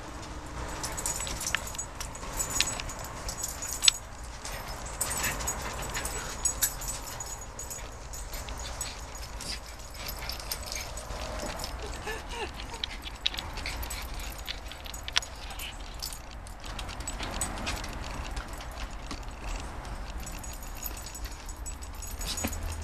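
Cairn terriers play-wrestling on a wooden deck: a run of scuffling and clicking, with short whimpers and yips from the dogs now and then.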